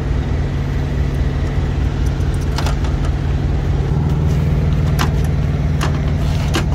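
Heavy truck engine idling steadily, an even low hum that grows a little stronger about four seconds in, with a few light clicks and taps near the end.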